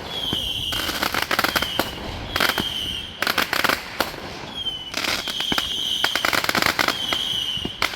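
A firework going off: a run of short, shrill whistles, each falling slightly in pitch, alternating with bursts of rapid crackling.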